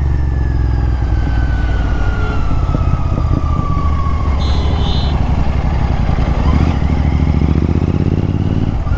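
Royal Enfield Continental GT 650's 648 cc parallel-twin engine running while riding through traffic, with the revs gradually rising in the second half. A faint high tone slowly falls in pitch over the first four seconds, and a brief high beeping sounds about halfway through.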